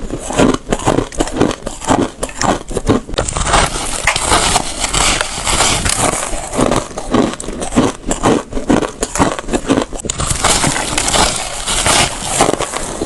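Crunchy crushed ice being bitten again and again: a continuous run of crisp, crackling crunches, several a second.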